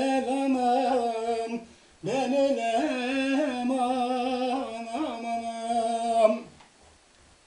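A man singing a Turkish folk song (türkü) unaccompanied: two long held notes on a vowel, ornamented with wavering turns, with a short breath between them.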